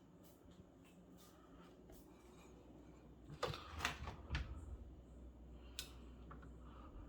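A few faint clicks and knocks over quiet room tone, clustered about halfway through with one more click a little later.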